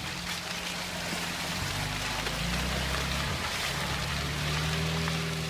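UAZ off-roader's engine running at low revs, its pitch shifting up a little about two seconds in, over a steady hiss.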